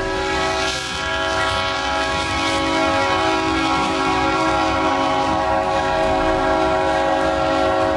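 A vehicle horn held in one long, steady blast of several tones at once, over a low rumble.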